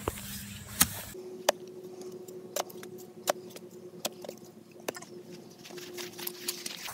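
Clamshell post hole digger jabbed into hard clay soil, making a string of sharp knocks and clinks about once a second.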